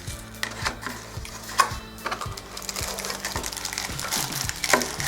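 Rustling and crinkling of packaging as the contents of a cordless phone box are handled and taken out, with a few sharp clicks and knocks, the sharpest about a second and a half in. Soft background music with a steady beat runs underneath.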